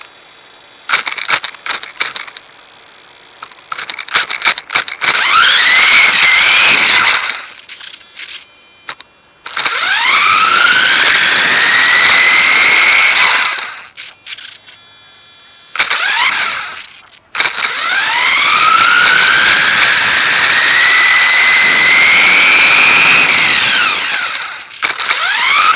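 Dromida DB4.18 RC buggy's electric motor whining up in pitch under throttle in several runs, the longest about seven seconds, over a rushing noise. Between runs there are short quiet gaps with small clicks and rattles.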